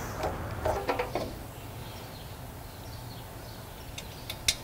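A few sharp metal clicks of a screwdriver and parts being worked on a lawn mower's small engine, over a low steady outdoor hum with faint bird calls. The loudest click comes near the end.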